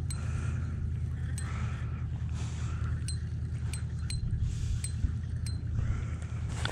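Spinning reel being cranked while a walleye is played on a bent rod: a steady low rumble with scattered sharp metallic ticks about once a second.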